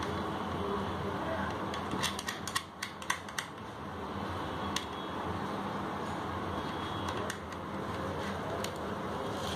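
Small clicks and rattles of a wire connector being worked onto the terminal posts of an electric fishing inverter, most of them bunched together about two to three and a half seconds in, with a few single clicks later. A steady low hum lies under them.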